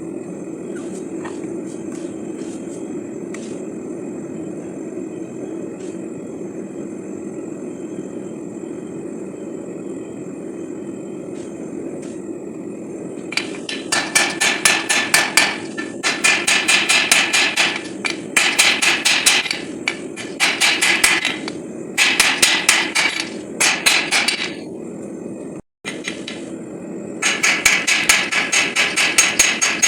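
Hand hammer striking a bar of SAE 5160 steel during forging, in rapid volleys of about six blows a second that begin about halfway through, with short pauses between volleys. Under it runs a steady low rush of noise.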